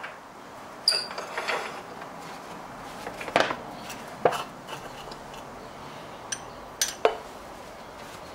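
Handling of a metal tin of cellulose sanding sealer: a short rattling clatter about a second in, then a few single sharp clinks and knocks as it is picked up and set down.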